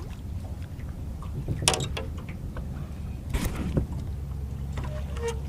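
Steady low rumble aboard a fishing boat, with a couple of short sharp knocks or clatters about a second and a half apart.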